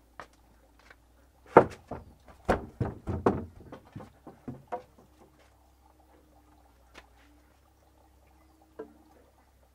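Wooden boards knocking against one another and against a wooden bed frame as they are handled and set down. A quick run of knocks starts about a second and a half in, the first the loudest, and is followed by two single taps later.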